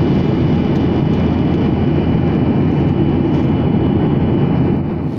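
Jet airliner cabin noise in flight: the steady rumble of the engines and rushing air heard from a window seat, with a faint steady high whine.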